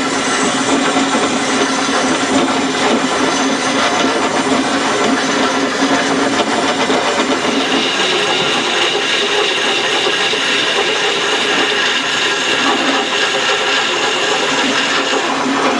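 VB36 bowl-turning lathe with a tool cutting the spinning wood: a steady hissing cut with a low hum under it. Its tone shifts about halfway through, as a higher ringing tone comes in and the low one fades.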